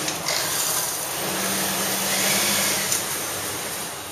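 Industrial sewing machines running, with a steady motor hum that stands out for a second or so in the middle over a constant hiss.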